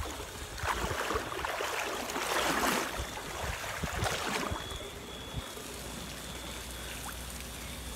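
Steady rushing of floodwater moving through a street, louder for the first four and a half seconds, then quieter and even.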